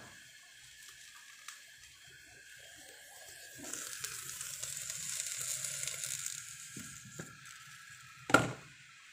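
Covered pot of bamboo shoots and prawns simmering: a soft sizzling hiss swells for a few seconds in the middle, over a steady high whine. A sharp knock comes near the end.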